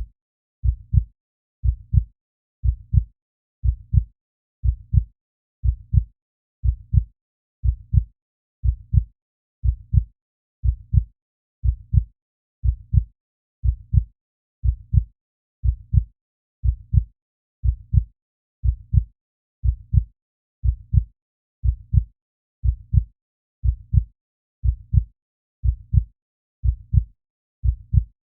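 Heartbeat sound effect: a steady rhythm of low, dull double thumps, each beat a pair of thumps in quick succession, about one beat a second.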